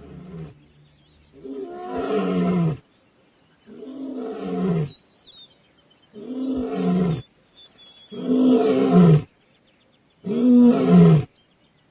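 A male African lion roaring in a bout: five loud roars of about a second each, spaced roughly two seconds apart, the later ones the loudest.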